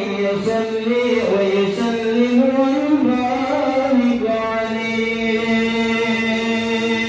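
A man chanting Arabic shalawat, blessings on the Prophet, in a slow ornamented melody with wavering turns, then holding one long steady note over the last three seconds.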